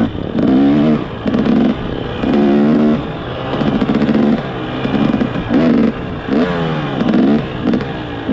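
Dirt bike engine being ridden off-road, the throttle worked on and off so the revs climb and drop every second or so.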